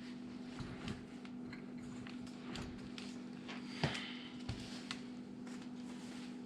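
Faint scattered clicks and light knocks from hands working a dishwasher out of its opening, with one sharper knock about four seconds in, over a steady low hum.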